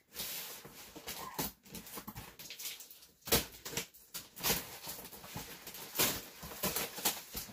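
Cardboard shipping box being cut and pulled open: scraping and ripping of packing tape and cardboard, with several sharp knocks as the box is turned and its flaps pushed back.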